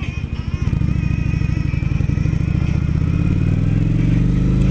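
Kawasaki Vulcan 900 Classic's V-twin engine pulling away from a stop. It gets louder about a second in and its note climbs steadily as the bike accelerates.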